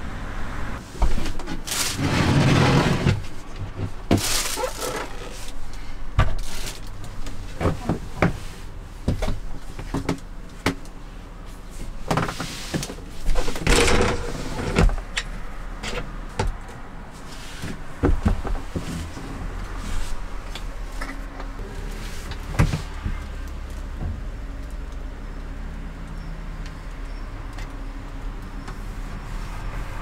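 Handling noises: a run of sharp knocks and clicks with a few short scraping or rustling bursts in the first half, over a steady low hum.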